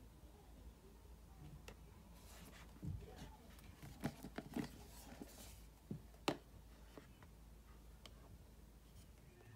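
White cardboard AirPods retail boxes being handled: faint rubbing and sliding of cardboard, with a handful of light taps and knocks clustered in the middle, the sharpest about six seconds in.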